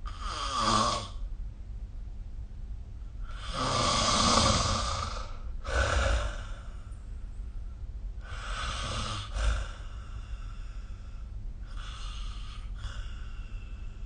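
A sleeping person snoring, with five rasping breaths spaced a few seconds apart; the longest and loudest, about two seconds long, comes about four seconds in.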